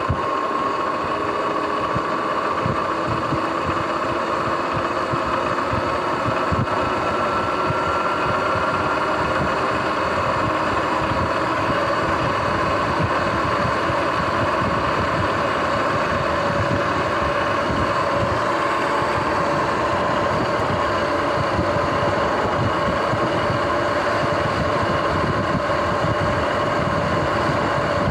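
Sur-Ron X electric dirt bike under way, its motor and drive whining steadily and rising slowly in pitch as it gathers speed over the first several seconds, over continuous tyre and wind noise.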